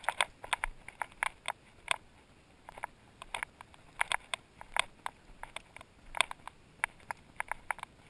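Irregular light crackling and clicking, several a second, of movement through dry brush and grass.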